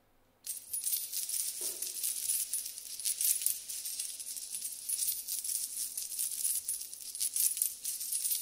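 Rattling percussion starts suddenly about half a second in and keeps going: a dense, high, jingling shimmer of many fine ticks.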